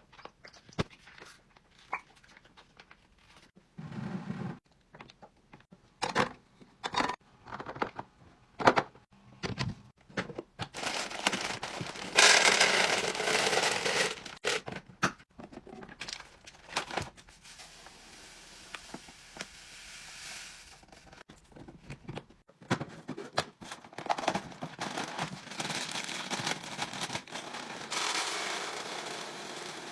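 Snacks and drinks being unpacked and stacked while restocking a fridge: plastic packaging crinkling and tearing, with scattered clicks and knocks as items are set down. A longer stretch of rustling comes about twelve seconds in, and another near the end.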